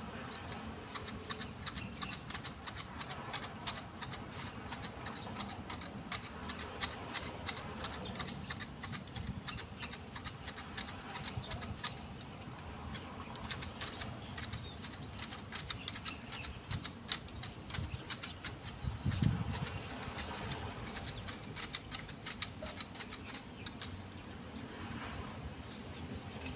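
Manual hedge shears snipping through a Fukien tea hedge: a quick run of short, crisp blade clicks with brief pauses, thinning out near the end. A dull thump stands out about two-thirds of the way in.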